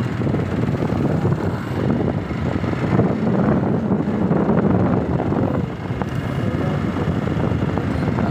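Wind rushing over the microphone on a moving motorcycle, with the bike's engine and road noise running underneath as a steady rumble.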